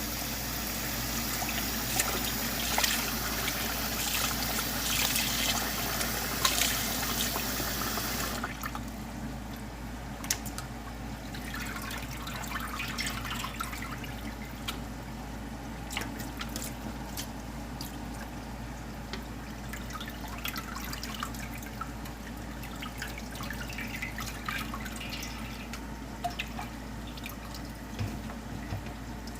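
Water running steadily with small clicks and splashes, cut off suddenly about eight seconds in, followed by faint clinks and knocks of kitchen handling.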